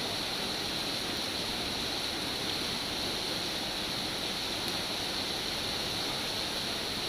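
Steady rain falling, a dense even hiss with no single drops or thunder standing out.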